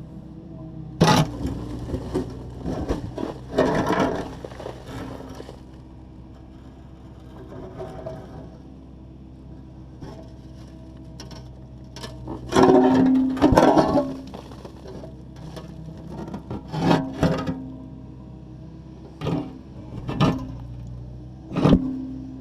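Takeuchi TB260 excavator's diesel engine running steadily under hydraulic load while its bucket scrapes and breaks up a concrete slab, with irregular loud crunches and knocks of concrete a little after the start, around the middle and several times near the end.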